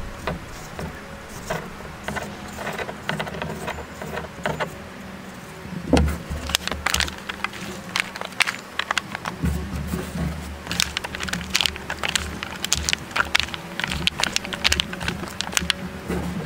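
Sliced bell peppers handled and tossed by gloved hands in a disposable aluminium foil pan: irregular crinkling clicks of the thin foil and rustle of the pepper strips, with a dull knock about six seconds in and busier handling after that.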